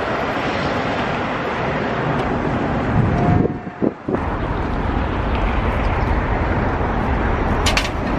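Steady outdoor rushing noise, likely wind on the microphone, briefly dropping away about three and a half seconds in. Near the end there is a single sharp metal clink from hand tools.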